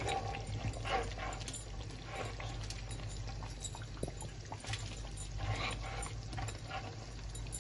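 A red spatula stirring and scraping through a lamb and potato curry simmering in a large pan. Soft bubbling and scattered small clicks of the spatula against the pan ride over a steady low hum.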